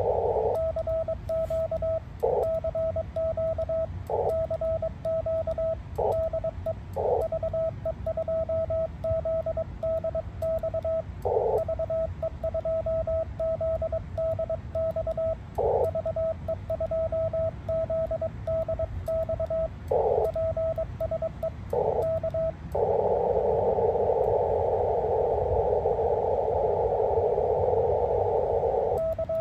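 Morse code sent by hand on an amateur radio transceiver: a steady sidetone of about 650 Hz keyed in dots and dashes, with short bursts of receiver hiss through the narrow CW filter in the longer gaps. About 23 seconds in the keying stops and only the filtered receiver hiss is heard for several seconds before a few more tones right at the end.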